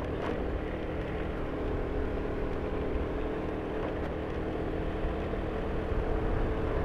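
Vehicle engine running steadily under load, climbing a steep hill.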